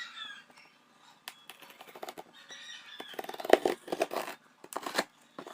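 Paper and packaging being handled: intermittent rustling with scattered light clicks, busiest from about three seconds in.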